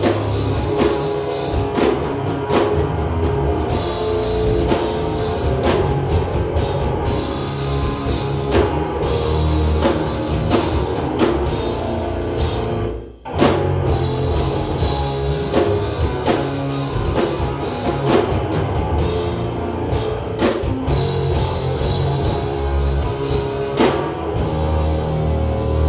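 A live heavy rock band playing loud, with amplified electric strings over a pounding drum kit. About halfway through the music stops dead for a split second, then crashes back in.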